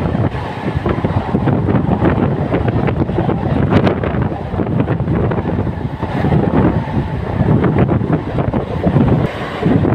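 Moving Mumbai suburban non-AC local train (EMU) running at speed, its rumble mixed with heavy wind buffeting on the microphone and frequent knocks and rattles.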